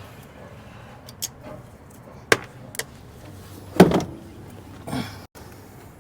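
Sharp metal knocks and clanks, a handful of separate strikes with the loudest a little before the fourth second, from sheet-metal blower parts being handled as a furnace blower is taken apart to pull its blower wheel.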